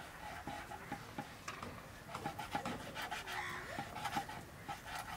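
Large kitchen knife slicing through cleaned buffalo intestine on a wooden cutting board: a run of irregular short strokes as the blade saws through and knocks the board.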